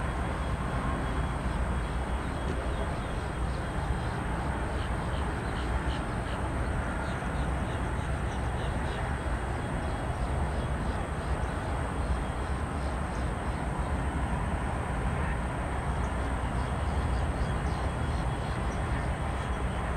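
Steady low rumble of distant aircraft and traffic, with no jet passing close, and birds chirping in short calls a few seconds in and again near the end. A steady high-pitched tone runs underneath.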